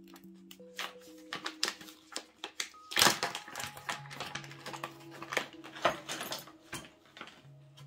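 Paper pouch crinkling and rustling as it is opened and handled, with irregular small clicks and taps and the loudest crackle about three seconds in. Soft background music with held notes runs underneath.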